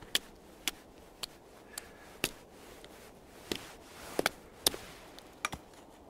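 About a dozen sharp, irregular knocks and taps from a knife chipping a chaga growth off a frozen birch trunk.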